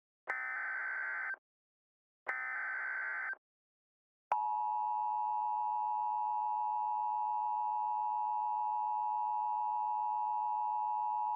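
Emergency Alert System message header: two bursts of SAME digital data tones, a buzzy screech of about a second each with about a second between them. About four seconds in, the steady two-tone EAS attention signal starts and holds, marking the start of a new alert.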